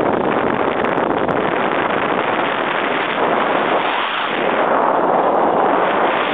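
Wind buffeting a camera microphone high up on a parasail: a loud, steady rushing noise that eases slightly about four seconds in.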